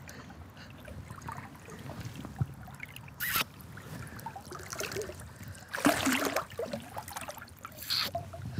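River water trickling and lapping around a wading angler, with a few splashes as he handles an Atlantic salmon at the surface and lets it go; the longest splash is about six seconds in.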